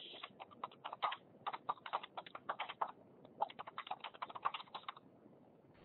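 Typing on a computer keyboard: quick runs of keystrokes with two short pauses, heard over a narrow-band webinar audio link.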